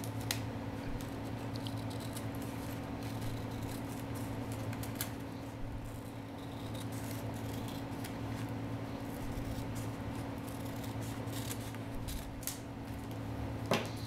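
Blue-handled scissors cutting across the top of a paper envelope, with scattered small snips and paper rustles over a steady low hum. A louder click comes near the end.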